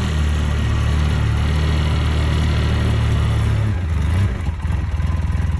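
A vehicle engine running steadily, then dropping to a throbbing idle about four seconds in.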